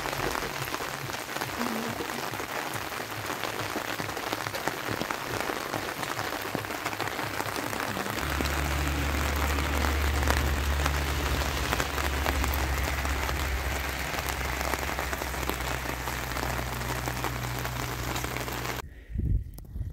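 Steady hiss like rain falling. A low steady hum joins it about eight seconds in, and both cut off abruptly near the end.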